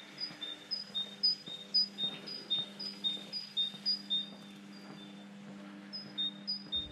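A small songbird singing a repeated two-note phrase, a high note then a lower one, about two phrases a second, breaking off briefly past the middle. A steady low hum runs underneath.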